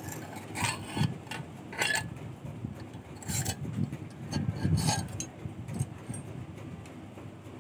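A hand file scraping against steel spring wire held in a vise: several separate strokes at uneven intervals about a second apart.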